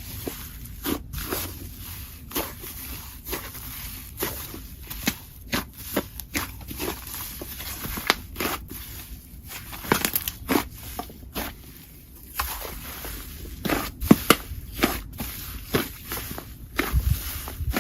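Hands squishing and pressing slime, giving irregular sticky clicks, pops and small crackles, several a second.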